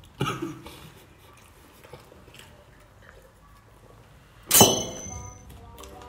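Tableware struck once with a sharp clang about four and a half seconds in, ringing on for about a second as it fades; a softer knock comes just after the start.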